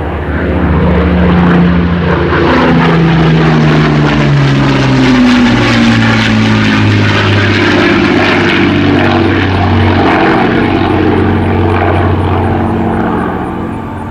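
Propeller-driven WWII warbird with Rolls-Royce Merlin engines making a low, loud fly-by. The engine note swells up within the first second and falls in pitch as the aircraft passes, then holds lower before easing off near the end.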